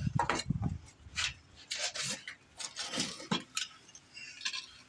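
Irregular knocks and short scrapes of hand tools and metal parts being handled while working on a car's rear axle.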